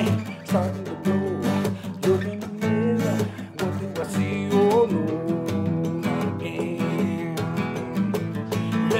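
Acoustic guitar strummed in a steady rhythm, with a man singing over it for roughly the first half; the strumming carries on alone after that.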